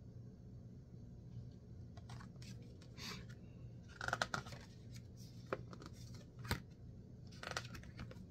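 Pages of a paperback picture book being handled and turned: several short paper rustles, the loudest about four seconds in, and a sharp click about six and a half seconds in, over a faint steady hum.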